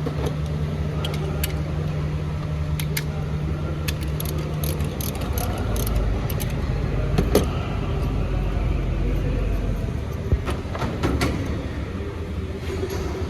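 Toyota Yaris engine running, a steady low hum that drops to a deeper hum about five seconds in, with light metallic clinks and ticks of tools throughout.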